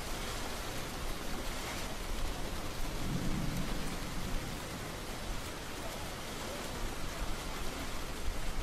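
Steady rain falling, with a brief low rumble about three seconds in.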